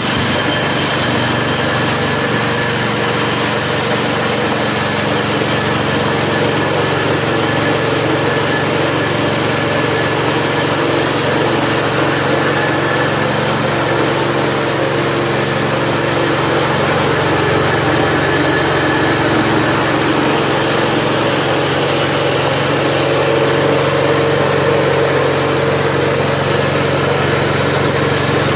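KD350 mini corn-cracking and rice-hulling machine running steadily, its drive making an even mechanical hum with a few fixed tones.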